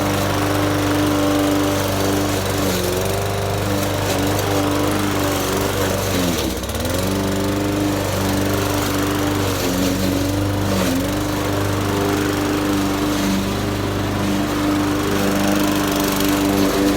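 Hyper Tough gas walk-behind lawn mower engine running steadily while mowing. Its pitch sags briefly a few times, most deeply about six and a half seconds in, as the engine takes load in the grass, then picks back up.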